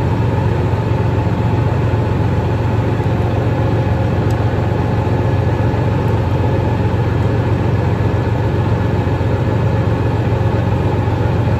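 Farm machine's engine idling steadily, a constant low hum with a few steady higher tones over it.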